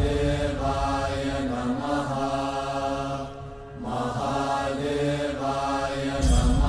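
Devotional chant on the show's soundtrack: voices intoning a mantra in long held notes over a deep drone. There is a short dip about halfway through, and a new, louder phrase starts near the end.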